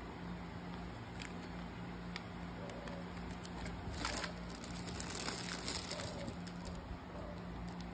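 Clear plastic packaging crinkling and rustling as hands pull pens out of a plastic bag. The rustling is loudest from about halfway through, with a few small clicks.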